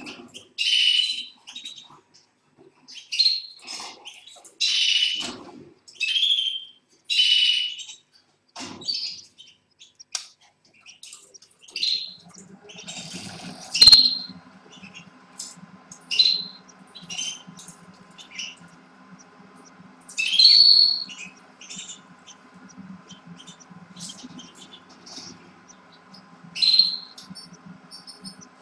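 Canaries chirping: short, high calls repeated every second or two. About halfway through a steady low hum starts, with a sharp click just after it begins.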